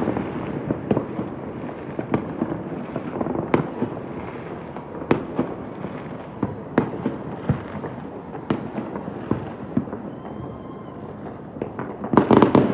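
Fireworks going off all over a city at once: a continuous distant rumble of explosions with frequent sharper bangs and cracks, and a dense, louder volley near the end.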